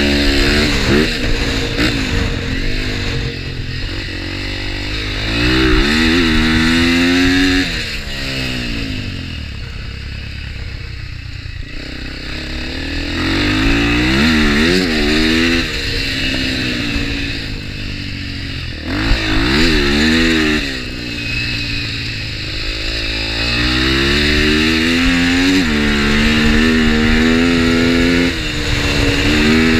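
TXR250X dirt bike engine on a dirt circuit, revving up and easing off again and again, its pitch climbing under throttle and falling away. There is a quieter, lower-revving stretch about a third of the way through.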